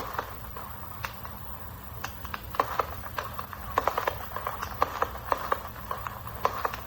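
600-shot 1.3G firework cake firing: an irregular run of sharp pops and reports, often in quick clusters, over a steady low rumble.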